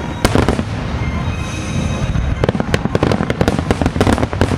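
Fireworks display: a rapid barrage of shell bursts, many sharp bangs and crackles close together over a low rumble, growing denser from about halfway in.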